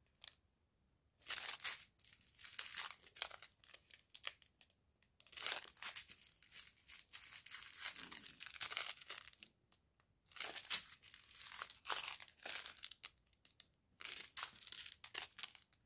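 Small clear plastic bags of diamond painting drills crinkling as they are picked up and handled, in irregular spurts with a few short pauses.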